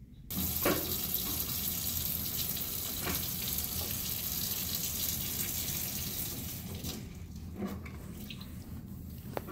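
A steady rushing hiss starts abruptly just after the start and eases off about seven seconds in, with a few faint knocks on top.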